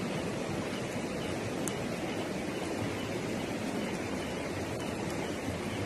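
Steady, even rushing noise with one or two faint ticks.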